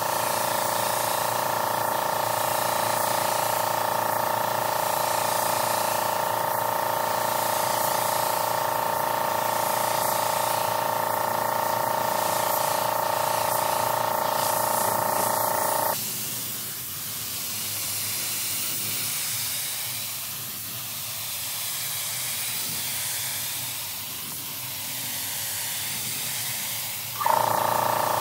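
Compressed-air paint spray gun spraying with a steady hiss and a whistling tone. The trigger is released about halfway through, leaving only a faint hiss, then pulled again just before the end.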